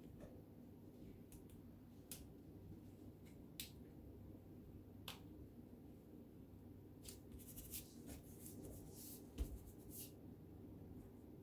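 Faint paper handling: light rustles and ticks as a paper feather is pressed and smoothed onto a glued paper collage on a table, busier in the second half, with one soft thump about nine seconds in over a low room hum.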